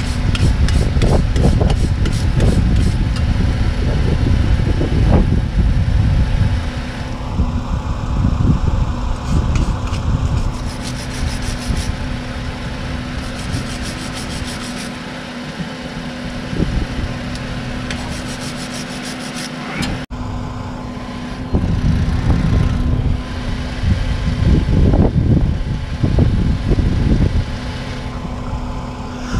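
Scraping and rubbing at a corroded brake pad wear sensor connector and wires to clean off the corrosion. The scraping comes in spells, with a quieter stretch in the middle, over a steady hum.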